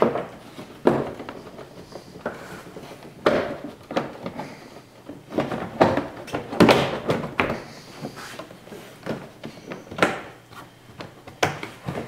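Plastic interior door trim panel of a 2005 Ford Focus rear door being pushed down and knocked into place against the door: a string of irregular thumps and clunks with rustling handling between, busiest about halfway through.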